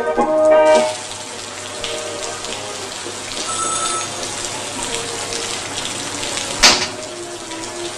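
Steady rain falling, a continuous hiss that stays level. A short bit of music plays at the start and stops about a second in, and near the end there is one sharp, loud thump.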